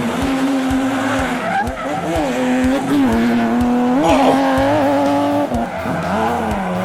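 Small electric motor of a homemade toy vehicle whining steadily, its pitch dipping and rising a few times as the load changes, with faint regular clicking underneath.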